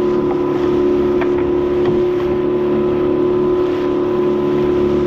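A small fishing boat's motor runs steadily at trolling speed, an even droning hum, with a few faint clicks a little after a second in.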